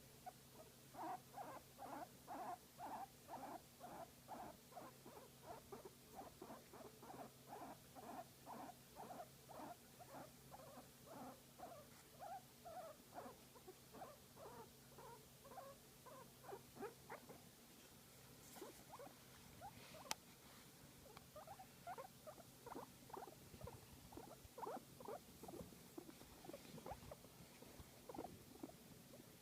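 Guinea pig making faint, rhythmic short calls, about two or three a second, a contented sound while being massaged. The calls lull briefly past the middle, with a single sharp click about twenty seconds in.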